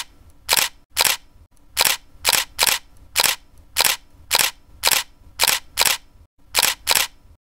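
Camera-shutter sound effects, a rapid run of sharp clicks at about two to three a second, with a short break near the end.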